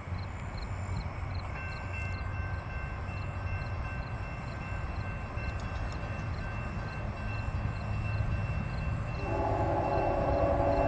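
Low rumble of an approaching diesel freight train. About nine seconds in, the Union Pacific locomotive's air horn sounds, a loud chord of several notes.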